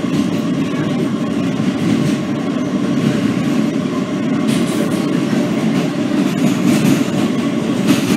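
Kawasaki R160B subway train running at speed, heard from inside the car: a steady rumble of wheels on rail, with a few brief clicks.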